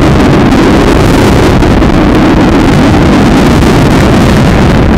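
Loud, steady rush of wind buffeting a rocket-mounted camera's microphone as the rocket descends under its parachutes.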